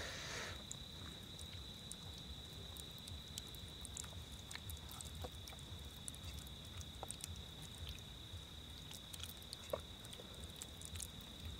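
Faint wet squishing and light clicks of hands rubbing masala paste into raw chicken and potato fries on a steel plate, over a steady high-pitched cricket chirr.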